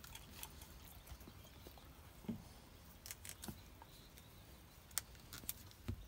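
Faint handling noises from a plastic wiring-harness connector and its wires being worked by hand: a few scattered small clicks and light rustles.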